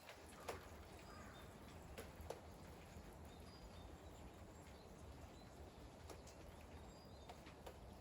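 Faint steady rain, with separate drops ticking now and then at irregular intervals.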